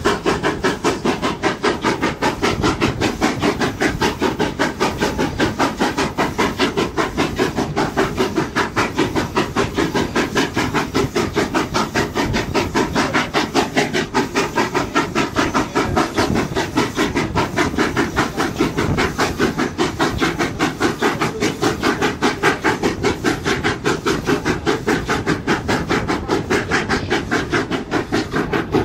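South African Railways Class 15F 4-8-2 steam locomotive working hard on a climb: a steady fast beat of exhaust chuffs, about three a second, heard from a coach window a few carriages behind the engine.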